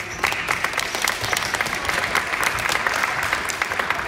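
Spectators in the gym bleachers applauding, a dense burst of clapping that thins out near the end.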